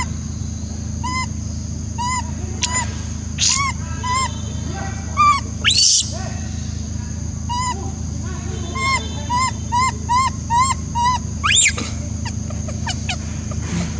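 Baby monkey crying: a run of short, arched whimpering calls, with three louder shrill calls that rise steeply in pitch. These are a hungry infant's begging calls for its mother's milk.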